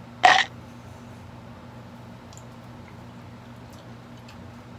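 Soft chocolate chip cookies being bitten into and chewed: one short loud burst about a quarter second in, then faint chewing clicks.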